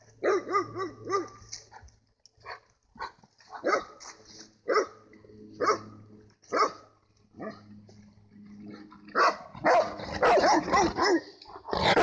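Bernese mountain dogs barking: a quick run of high yelping barks at the start, then single barks about a second apart, then a dense run of barks and yelps near the end.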